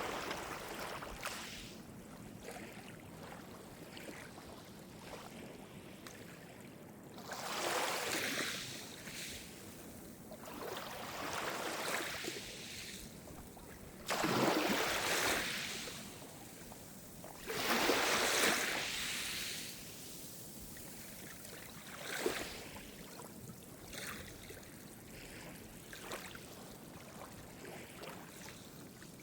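Gentle sea waves breaking and washing up the shore, one swell of hissing surf every few seconds, with quieter lapping water in between.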